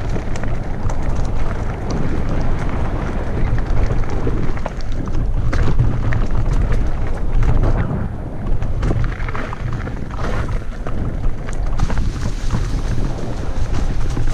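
A mountain bike ridden fast down a dry dirt trail: heavy wind rumble on the GoPro's microphone over the hiss of the tyres, with frequent sharp knocks and rattles as the bike goes over bumps.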